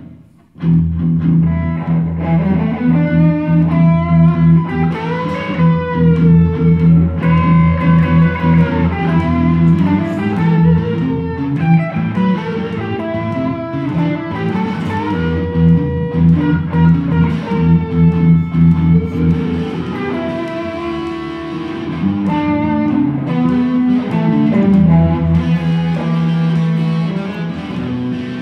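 Two amplified electric guitars playing together, starting a moment after a brief pause: a steady low rhythm part under a lead line with bent, sustained notes.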